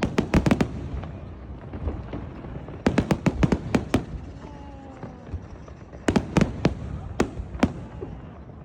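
Fireworks going off: sharp bangs in quick clusters of several reports each, three bursts of them with short lulls between.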